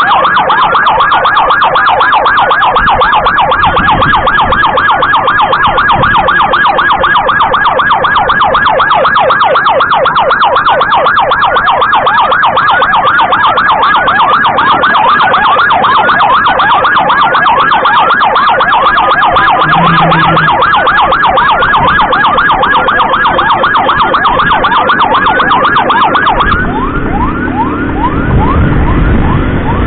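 Electronic emergency siren on a fast, rapidly repeating yelp, loud and close. About 27 s in it turns quieter and sweeps more slowly, with a low rumble underneath.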